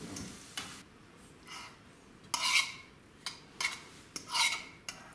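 Scrambled eggs sizzling briefly in a frying pan, then a metal utensil scraping them out of the pan onto a plate in about five strokes, the loudest about two and a half and four and a half seconds in.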